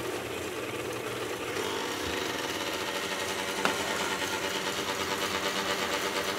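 KitchenAid stand mixer running, its wire whisk beating egg whites in a stainless steel bowl while sugar is added: a steady motor whir with a fast, even beat. A single light click about three and a half seconds in.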